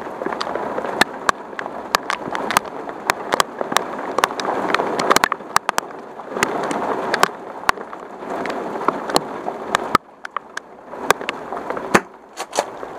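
Heavy rain falling, a steady hiss that swells and eases, with many irregular sharp ticks and knocks close by.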